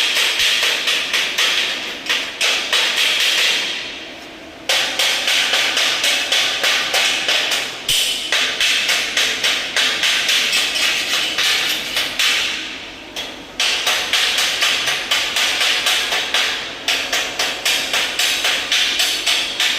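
A hammer striking metal in quick, steady runs of blows, about three a second. The runs pause briefly a few times.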